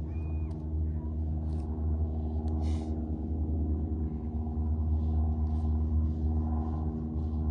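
A steady low motor drone, one unchanging hum with several pitches stacked on it, with a short hiss about three seconds in.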